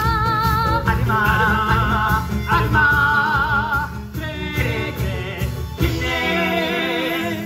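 Upbeat musical-theatre number: singing with long held notes that waver in pitch, over a backing track with a full bass. The bass drops back about six seconds in.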